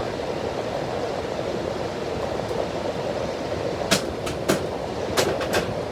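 Window air conditioner running on its fan alone, a steady whooshing hum, while its compressor fails to kick on. Several sharp clicks come in the second half.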